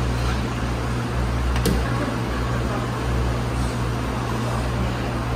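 Steady low electrical hum with fan-like noise from the room's appliances, and a single light click about one and a half seconds in.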